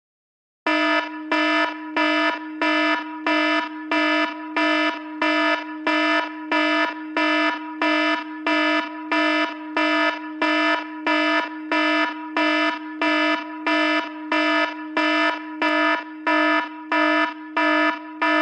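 iPhone alarm tone: an electronic beep at one steady pitch, repeating evenly about every three-quarters of a second. It starts just under a second in.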